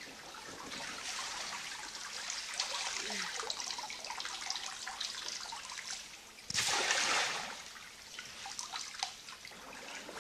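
Water trickling and splashing, with many small drips and one louder splash about two-thirds of the way through.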